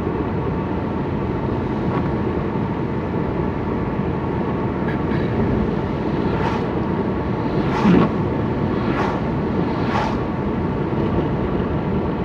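Steady road and engine noise inside a moving car's cabin, with a few short swishes or knocks, one louder than the rest, about two-thirds of the way through.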